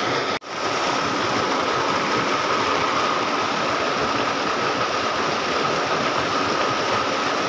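Steady rushing of stream water flowing past a stone-walled bank, the flow swollen after rain. It breaks off for a moment about half a second in.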